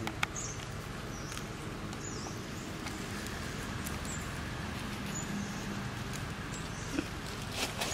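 Steady outdoor background noise with a few faint, short high-pitched squeaks scattered through it, and a couple of sharp taps near the end.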